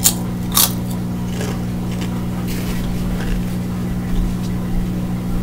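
Ridged potato chips (Flamin' Hot Barbecue Ruffles) crunched between the teeth, a few sharp crunches in the first couple of seconds and fainter ones after. Under them runs a steady low hum.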